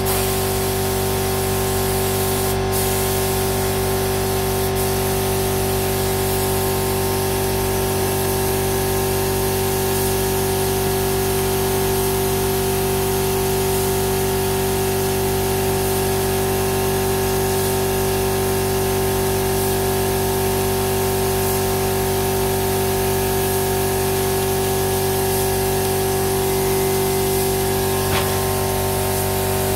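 Steady, unbroken hiss of compressed air during spray painting of a car shell in a spray booth, over a constant motor hum.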